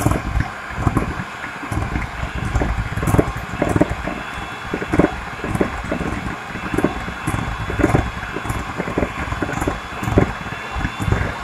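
Electric hand mixer running at a steady hum as its beaters cream butter in a glass bowl, with frequent irregular knocks of the beaters against the bowl.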